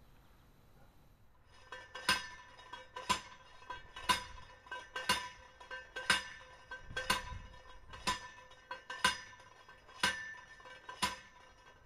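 Steel well pipe being driven into the ground, each blow giving a sharp metallic clang that rings on. The clangs start about two seconds in and then come evenly, about once a second, ten in all.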